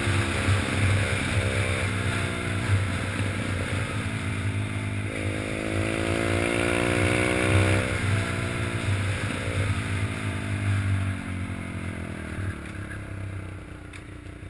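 Pit bike engine under way, revving up in each gear with its pitch climbing and dropping sharply at the gear changes. Near the end the throttle eases off and the engine winds down as the bike slows.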